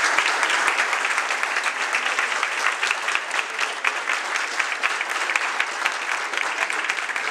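A crowd applauding: dense, steady hand-clapping from many people that eases slightly toward the end.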